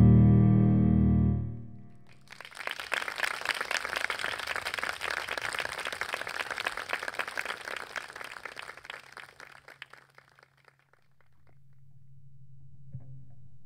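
A held piano chord fades out, then scattered hand-clapping applause for about eight seconds. A low cello note begins near the end.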